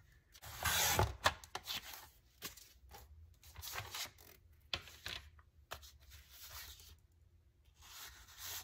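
Brown cardstock handled and cut on a sliding paper trimmer: short rasping cuts, paper rustling and small clicks, with the trimmed card scraping as it slides into a paper pocket near the end.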